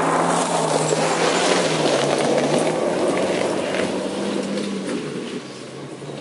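Car engine running under throttle as the car drives across a loose gravel course, its note wavering up and down, with stones crackling under the tyres; it fades as the car moves away near the end.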